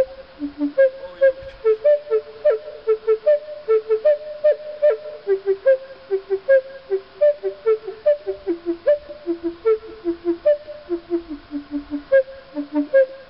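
Native American flute playing a melody of short, separated notes, about three a second, moving up and down among a few pitches.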